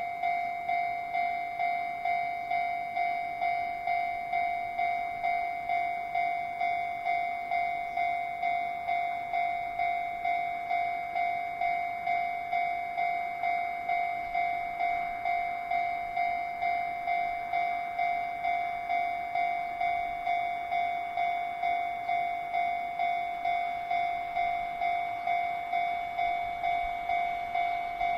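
Japanese railway level-crossing warning bell ringing steadily, a little over one ring a second, each ring sharp and quickly fading: the crossing's alarm signalling an approaching train.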